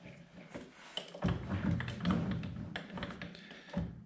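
Metal clicks and rattles from the hand-cranked slides and tool post of a Smithy CB-1220XL combination lathe being moved by hand. The clicks grow denser and louder about a second in and ease off near the end.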